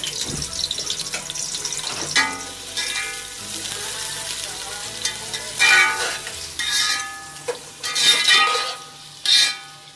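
Sliced onions sizzling as they fry in ghee in a pot while being stirred, with several short, loud pitched squeals in the second half.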